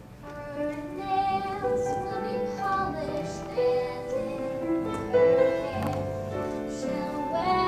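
A young female voice singing a show tune on stage, with piano accompaniment.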